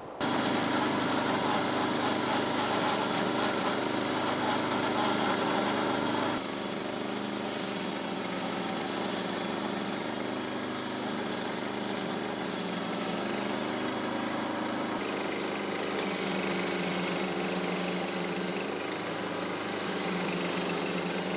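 Small gasoline engine running steadily. It is louder for the first six seconds or so, then a little quieter.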